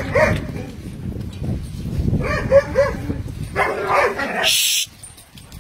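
Young Doberman dogs barking and yipping in short bursts while they chase and play, in clusters just after the start, about two and a half seconds in and about four seconds in. A brief high hiss follows near the end.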